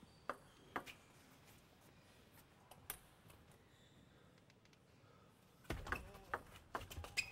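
Table-tennis ball clicks: a few single sharp clicks in the first three seconds, then, about six seconds in, a rally starts with quick clicks of the ball striking the bats and the table over low thuds.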